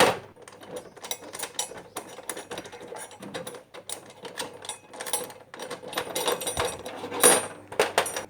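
Irregular clicking and rattling of screws and plastic parts, with a couple of louder clusters near the end, as the back cover of a 32-inch LED TV is taken apart.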